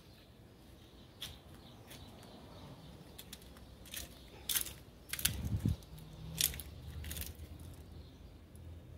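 Handling noise from a handheld phone being carried around a parked car: a few sharp clicks and knocks, with a short low thump about halfway through.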